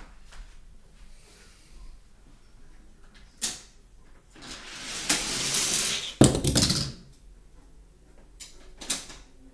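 Die-cast toy car rolling down a plastic Hot Wheels track, its rolling noise building for about two seconds, then a loud clatter about six seconds in as the car catches on something and crashes off the run. A few lighter clicks follow near the end.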